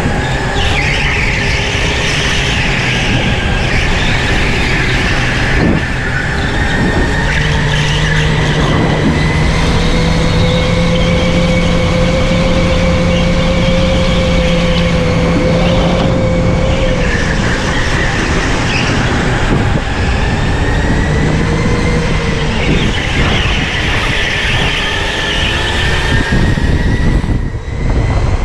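Electric go-kart driven hard, heard from onboard: the motor's whine slowly rising and falling in pitch with speed over a steady rush of tyre and wind noise.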